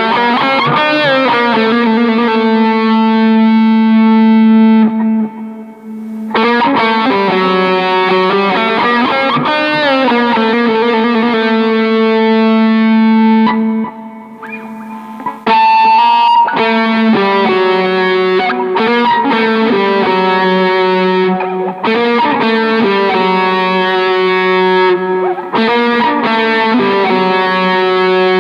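Electric guitar with distortion playing a dangdut melody one note at a time: long held notes with bends and slides. The playing pauses briefly about five seconds in and again around fourteen seconds.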